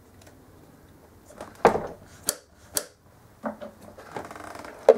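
Clicks and knocks as the throttle cable and carburettor throttle linkage of a Keeway RKS125 are worked by hand. There are a few sharp clicks, the loudest about one and a half seconds in, and a short rattle near the end.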